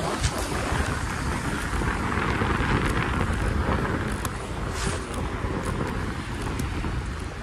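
Wind rushing over the microphone and tyre rumble from a scooter riding along a concrete footpath, steady throughout, with a few faint clicks.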